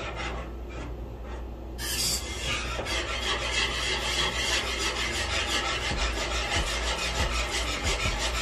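A spoon stirring macaroni and cheese in a pot, scraping and rubbing in a steady rhythm that starts about two seconds in, working the cheese in to melt.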